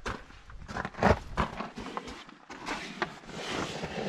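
Hiker's boots stepping unevenly on a gravelly, rocky dirt trail, a few crunching footfalls, with a longer scuffing rustle near the end.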